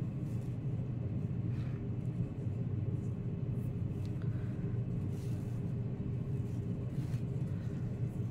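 A heater running with a steady low hum. Faint brief rustles and taps come from hands working tulle ribbon around a glass block.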